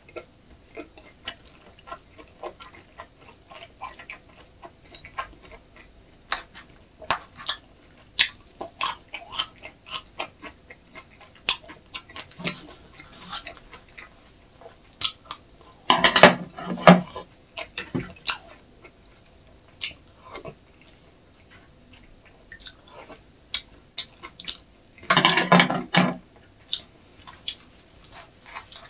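Close-up eating sounds: chewing and mouth clicks, with chopsticks tapping and clicking against plastic food containers. Two louder, denser stretches of about a second each come about sixteen and twenty-five seconds in.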